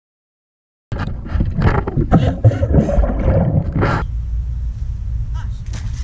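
Heavy anchor chain clattering and rattling as it is dragged over a concrete dock edge, starting about a second in and dense for about three seconds, then thinning to a few clinks. Wind buffets the microphone with a steady low rumble underneath.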